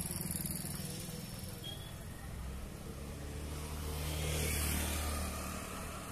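Street traffic with motorcycle and car engines running steadily. One vehicle passes close and loud about four to five seconds in.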